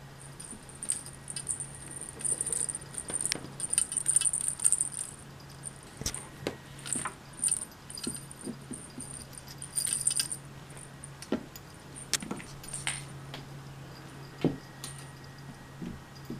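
Cat toy jingling and rattling in repeated bursts as a kitten bats and drags it around, with a few sharp knocks of the toy against the floor.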